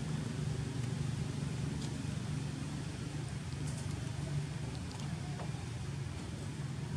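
Steady low rumble of a motor vehicle engine in the distance, with a few faint clicks over it.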